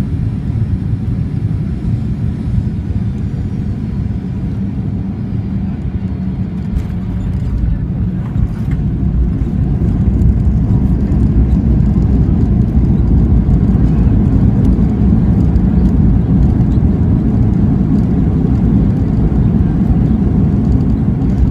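Cabin noise of a Boeing 737-800 on landing: a steady low rumble with a faint falling whine from its CFM56 engines, a few knocks about seven seconds in as the wheels touch down, then the rumble grows louder from about ten seconds in as the plane rolls out on the runway.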